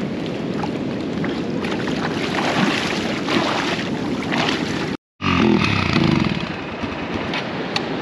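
A motorcycle engine running amid wind noise and rushing water, as a bike is ridden through a shallow stream. The sound cuts out completely for a moment about five seconds in.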